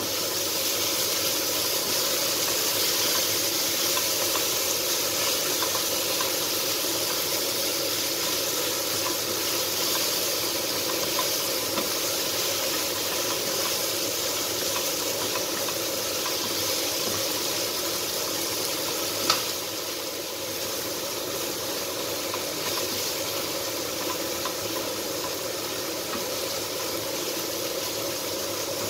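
Diced beef sirloin frying in a pan: a steady sizzle while it is stirred with a plastic spatula, slightly louder in the first several seconds. One sharp tap about two-thirds of the way through.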